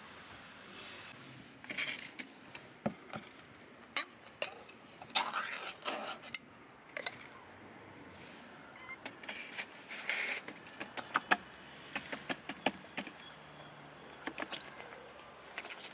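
Metal tin can of wet cat food clinking, knocking and scraping against a tray as the food is tipped and shaken out, in a run of irregular sharp clicks and knocks.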